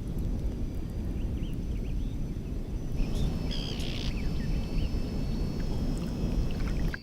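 Strong wind buffeting the microphone, a steady low rumble with a few faint high chirps above it.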